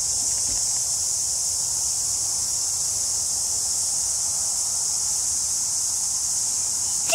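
A hectic chorus of cicadas: a steady, high-pitched drone that does not let up.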